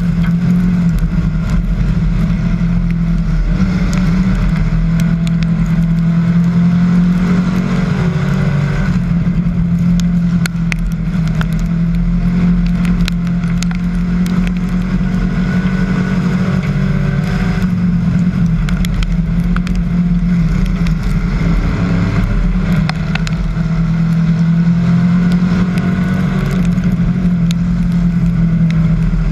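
Hobby stock race car engine running hard at racing speed, heard from a camera mounted on the car: a loud, steady drone that rises and falls slightly through the turns, with scattered sharp ticks and rattles.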